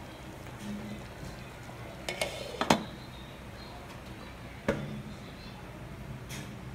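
Glass pot lid with a steel rim being set onto a metal pan: a few light clinks about two seconds in, then a sharp clink of lid on rim, and one more knock about two seconds later.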